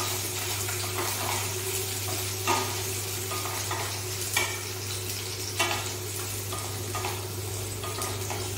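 Garlic, small onions and dried red chillies sizzling in hot oil in a pan, stirred with a wooden spatula that scrapes and knocks against the pan about three times.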